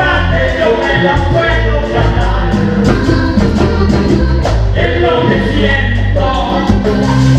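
Vallenato band playing live: a steady bass line under a shifting melody with singing, over a regular percussion beat.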